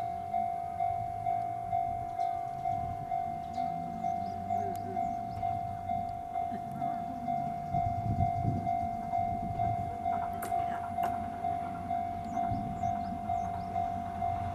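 Japanese electronic level-crossing alarm ringing in an even pulse of about two dings a second, while a diesel train on the non-electrified Hachikō Line runs through the crossing with a low engine rumble and wheel clicks, busiest about eight to eleven seconds in.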